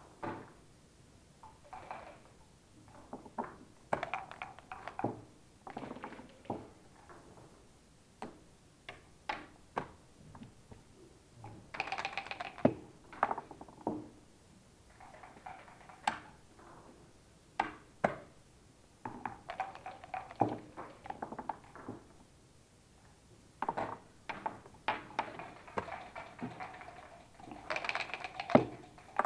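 Backgammon play: dice shaken in dice cups and thrown onto the board in several rattling bursts of a second or two, with sharp single clicks of checkers being moved between them.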